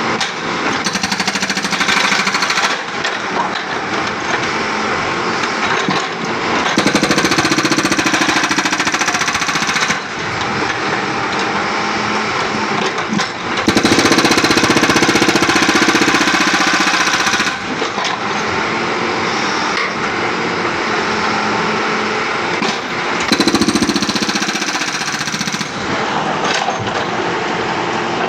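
Backhoe-mounted hydraulic breaker hammering a 5-inch concrete slab in rapid, continuous blows. It gets louder in several spells of a few seconds each, about three times.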